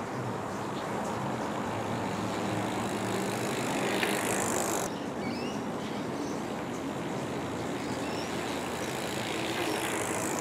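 A mountain bike rolling in on asphalt over steady outdoor street noise, its tyre and freewheel sound swelling near the end as it rides past. A few short bird chirps come about halfway through.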